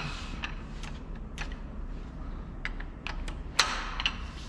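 Irregular sharp metallic clicks and clacks of a long socket wrench and dial angle gauge being fitted onto a main bearing cap bolt of a Volvo D13 truck engine, ready for the 120° angle-tightening step; the loudest click comes about three and a half seconds in.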